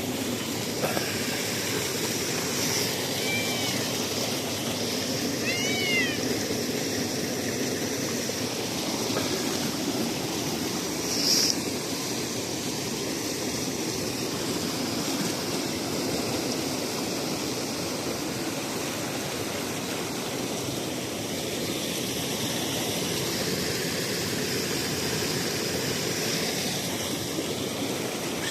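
A cat meowing in short rising-and-falling calls, twice in the first six seconds, over a steady rushing background noise; a brief sharp sound comes about eleven seconds in.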